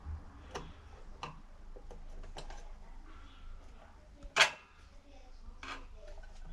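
Light clicks and taps of a small screwdriver and thin wire being worked into an inverter's screw terminal block, a few seconds apart, with one much louder, sharper click about four and a half seconds in.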